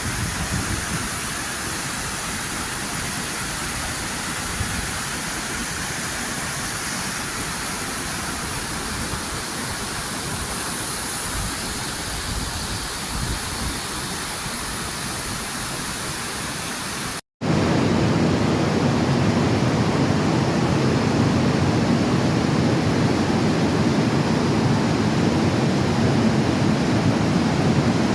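Steady roar of rushing water from a waterfall. About two-thirds of the way in it cuts off for an instant and comes back louder and deeper.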